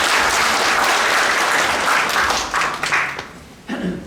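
An audience applauding. The clapping is dense at first, then thins into scattered claps and dies away about three seconds in. A brief voice follows near the end.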